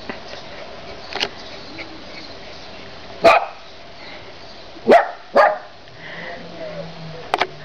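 Bolognese dog barking in short, sharp barks: a faint one early, a loud one about three seconds in, two close together about five seconds in, and a quick double near the end.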